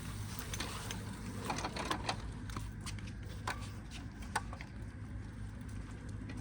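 Jazzy power wheelchair's drive motors and gearboxes running with a steady low hum while being driven, with a few sharp clicks and knocks from the chair's mechanism. The owner thinks the motors are probably not good.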